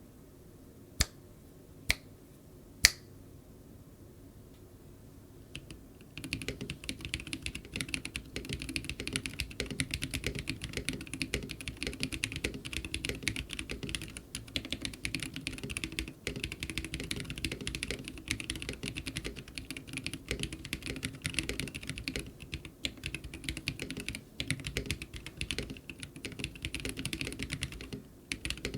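Three sharp single clicks about a second apart, the third the loudest. Then continuous fast typing on a Womier K87 mechanical keyboard, whose acrylic plate carries tactile Glorious Holy Panda switches lubed with Krytox 205g0 and stock keycaps, with a short pause near the end.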